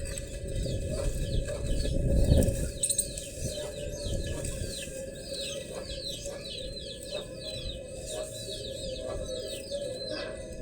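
Bird chirping: many short, high calls that fall in pitch, about three a second, over a steady low rumble.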